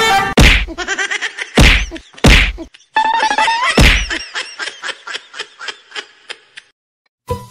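Four heavy whacks and thumps, about half a second, a second and a half, two and a quarter and nearly four seconds in, among pitched sliding tones, followed by a run of quick ticks that fade out.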